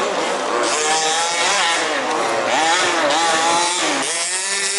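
Several 1/5-scale RC off-road cars' small two-stroke petrol engines revving up and easing off as they race, their pitches rising and falling over one another.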